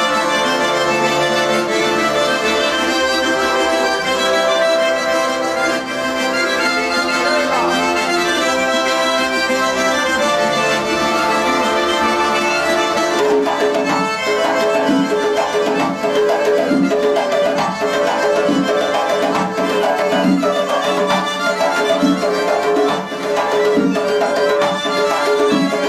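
Garmon, an ornately decorated Caucasian button accordion, playing a traditional tune. About halfway through, a large hand-struck frame drum joins with a steady beat.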